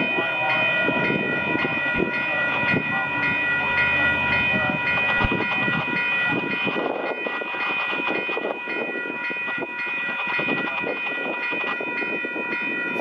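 Union Pacific freight train approaching behind GE diesel locomotives: steady engine rumble with a high whine of several held tones over it.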